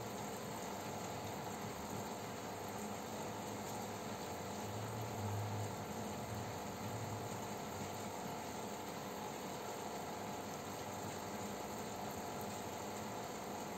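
Steady hum and hiss of running aquarium equipment (filter and air pump), with a brief low swell about five seconds in.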